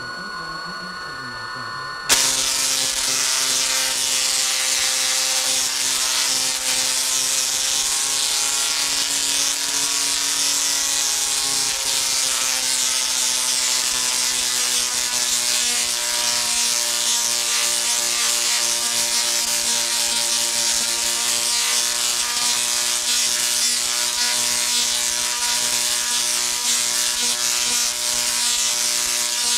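A rotary-spark-gap Tesla coil fires about two seconds in, after a short high whine. Its sparks make a loud, harsh, steady buzz pitched at the rotary gap's break rate; the pitch wavers slightly, then settles. Streamers crackle off the two spaced aluminium toroids, and a power arc bridges the toroids.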